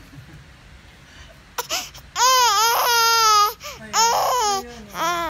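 Young baby crying: after a quiet start, one long high wail begins about two seconds in, then shorter wails follow.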